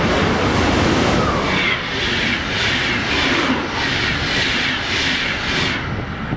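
FlixTrain electric-hauled passenger train running through the station without stopping: a loud rush of wheels on rail, with a rhythmic clatter about twice a second as the coaches go by. The clatter ends shortly before the end as the last coach passes.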